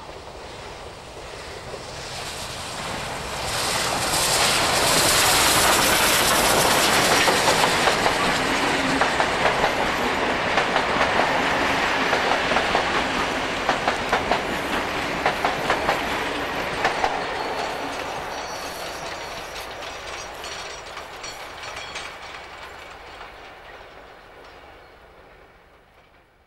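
NSW C36 class steam locomotive 3642 coming out of a tunnel and passing close with its train. The sound builds to a loud peak, then carriage wheels clickety-clack over rail joints as the train fades into the distance.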